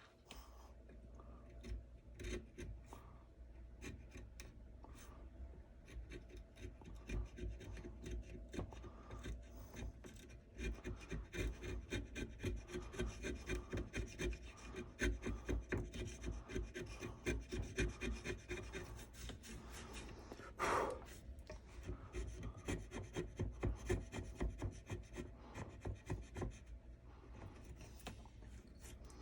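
A hand tool scraping the wooden rifle stock in repeated short strokes, about two a second and most regular through the middle. There is a brief louder sound with a rising pitch about two-thirds of the way through.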